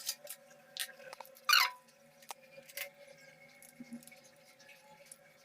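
Scattered small clicks and taps of hand work on the bench, with one short, louder squeak about one and a half seconds in, over a faint steady whine.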